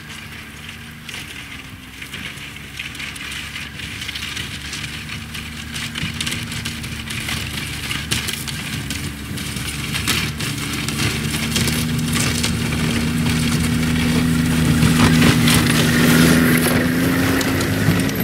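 A vehicle engine running steadily, growing gradually louder, with a crackling noise over it.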